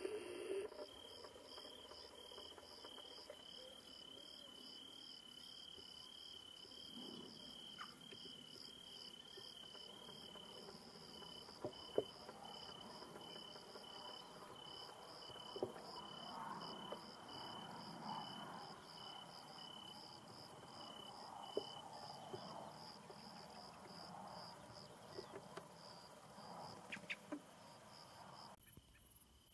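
Crickets singing at night in two pitches. The higher one chirps in a rapid, even pulse. The lower one trills steadily, then breaks into separate chirps about twice a second and stops a little over twenty seconds in. A few faint sharp knocks come through as well.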